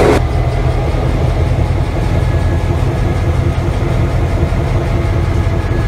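EMD two-stroke diesel locomotive engine running steadily, heard from inside the locomotive: a low rumble with a thin steady whine above it, the whine of the Roots blower.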